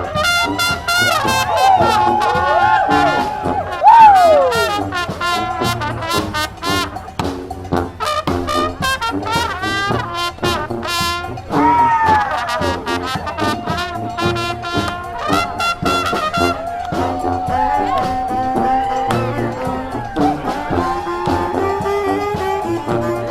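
Street marching band playing, with trumpets and trombones over a steady drum beat. A loud downward slide about four seconds in, then long held horn notes in the second half.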